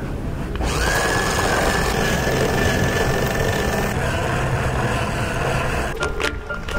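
Radio-controlled toy car's small electric motor running with a steady high whine, starting about half a second in, as it spins its wheels stuck in sand. About a second before the end it cuts to music.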